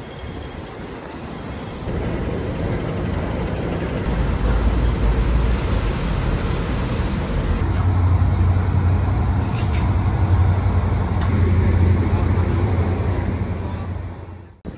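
An MTR train running, heard from inside the carriage as a steady rumble. A deep even hum comes in about halfway through.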